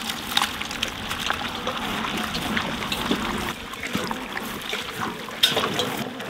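Goat curry bubbling wetly in a large copper pot over a wood fire, with many small pops and splashes as the last chopped tomatoes and greens go in and a wooden paddle stirs it; a sharper knock about five seconds in.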